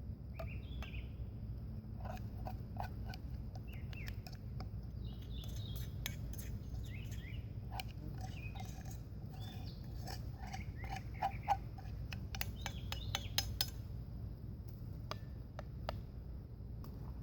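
A spoon clinking and tapping against a metal camp pot, in quick runs of clicks mostly through the middle of the stretch. Birds chirp and a steady high insect buzz carries on behind.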